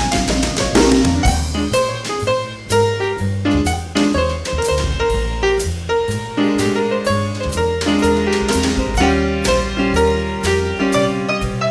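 Live instrumental jazz: piano playing chords and short runs over a bass line of strong, low, steadily moving notes.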